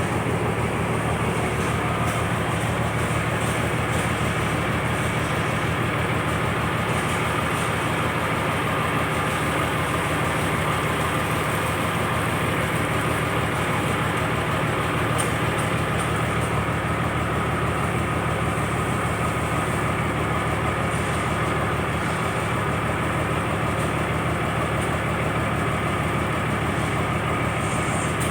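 A purse seine fishing boat's engine running steadily at an even pitch, a low drone with no change in speed.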